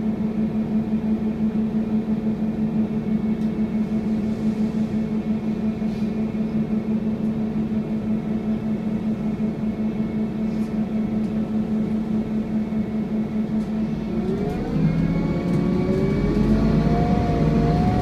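Scania N230UD double-decker bus's diesel engine humming steadily, heard from inside on the upper deck; about fourteen seconds in the engine note and a whine climb in pitch and grow a little louder, the vacuum-cleaner-like 'hoovering' sound these buses are known for.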